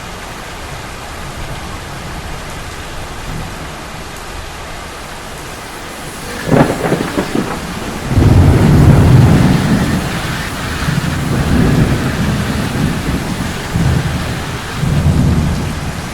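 Steady rain hiss. About six and a half seconds in comes a sharp crack of thunder, then a long low rumble of thunder rolling in several swells.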